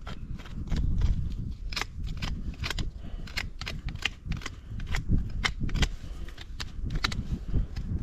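Hoof knife paring the sole of an Arabian mare's front hoof: an irregular run of short, sharp scraping cuts, about two or three a second.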